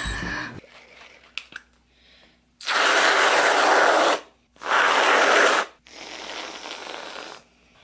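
Aerosol can of whipped cream spraying: two loud hisses, the first about a second and a half long and the second about a second, followed by a fainter hiss near the end.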